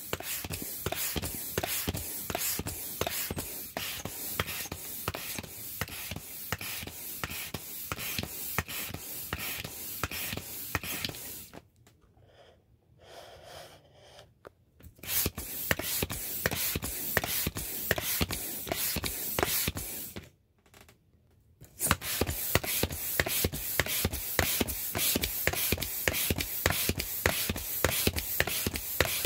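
Air pump inflating a vinyl inflatable rooster pool toy, a fast, even rhythm of air puffs that stops for a few seconds about halfway through and again briefly later.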